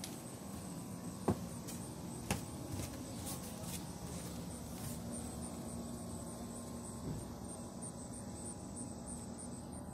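Footsteps of a person walking down wooden steps and along a path, with two sharp knocks about one and two seconds in, over a low outdoor background hum; in the second half a faint high pulsing sound repeats a few times a second.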